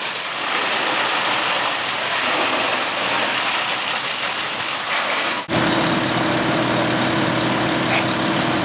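Fire hose streams spraying water onto burning wreckage, a steady rushing hiss. About five and a half seconds in it cuts off abruptly and a fire engine's motor takes over, running steadily with a low, even hum.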